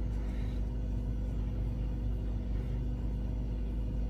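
A steady low rumble with a faint, even hum, unchanging throughout.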